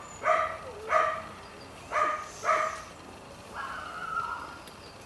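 A dog barking high and short, four times in the first two and a half seconds, then giving one longer, drawn-out higher call a little past the middle.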